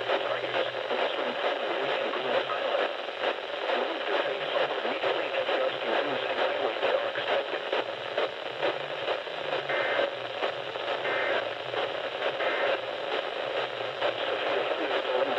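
Steady static hiss from a radio receiver on a weak, noisy signal, heard through a narrow radio audio band. Three faint short bursts come near two-thirds of the way through.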